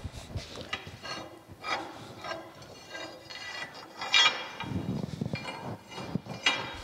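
Steel lead screw of a circa-1890 New Haven metal planer being slid by hand through the bore in the end of the cross-rail saddle: irregular metal-on-metal scraping and clinking, with a sharper knock about four seconds in.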